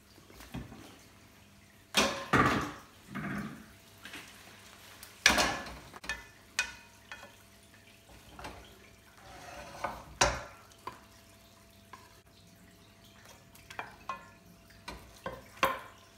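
A serving utensil scraping and knocking against a frying pan as pieces of chicken are lifted out, with several sharp clatters and shorter scrapes between them.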